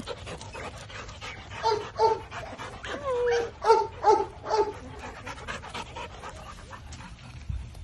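Dog giving a run of short barks, with one longer whining call in the middle, then panting.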